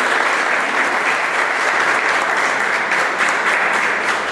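Audience and panel applauding, a steady dense clapping of many hands.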